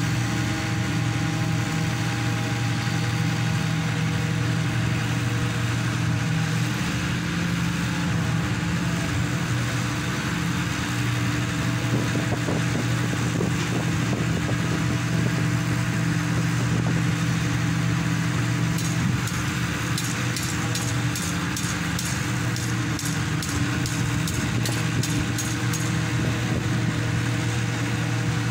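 Engine of a hydraulic static pile driver running at a steady speed. In the second half there is a quick run of high, sharp ticks that lasts several seconds.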